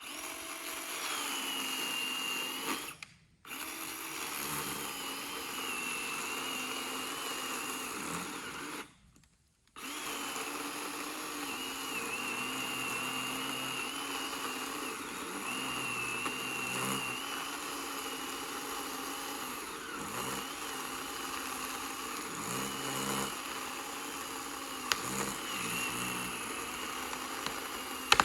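SORAKO 20-volt cordless 10-inch chainsaw running as it cuts into a pine trunk, its electric motor giving a steady whine that wavers slightly under load. The saw stops briefly twice, about three and about nine seconds in.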